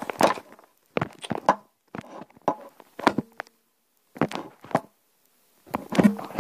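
A run of short knocks and rustles, about one a second with silent gaps between, as paper and the phone are handled on a wooden table.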